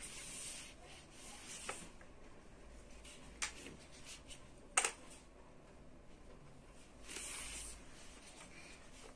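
Small cardboard number cards handled on a whiteboard: soft rustling and sliding as they are picked up and moved, with three sharp light taps as cards are set down, the loudest about five seconds in.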